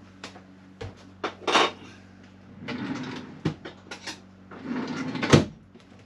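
Tools and parts being handled: a run of knocks and clicks with some scraping, the loudest knocks about a second and a half in and near the end, over a steady low hum.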